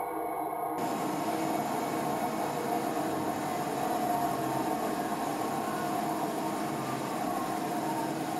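Haas ST-40 CNC lathe running: a steady mechanical hum and hiss with faint steady tones, taking over from music about a second in.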